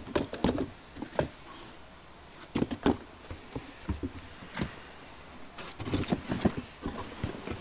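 A cardboard box of stemmed glass sundae dishes being handled: a glass is set back into its divider and the cardboard flaps are folded shut, giving scattered light knocks, taps and clinks.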